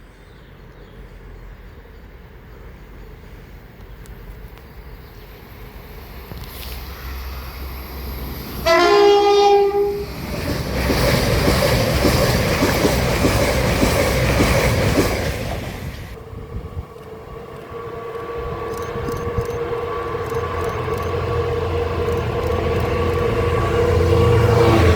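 A passenger train approaches, sounds its horn for about a second, and passes at speed with a dense rush of wheel and rail noise. After it fades, a second train approaches with a steady motor tone, growing louder toward the end.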